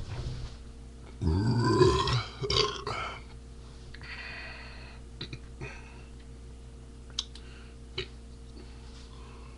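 A man burping: one long, loud burp starting about a second in, quickly followed by a shorter one. A breathy hiss follows, then a few faint clicks.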